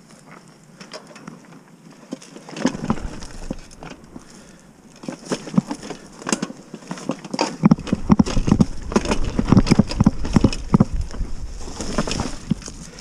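Mountain bike clattering down a rough downhill trail: a rapid, irregular stream of knocks and rattles from tyres and frame over rocky ground. It grows denser and louder with a low rumble from about eight seconds in.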